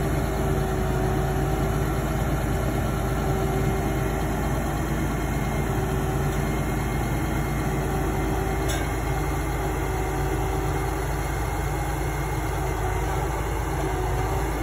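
Tractor engine running steadily, driving the hydraulic crane of a forestry log trailer as it loads logs: an even hum with a brief click about nine seconds in.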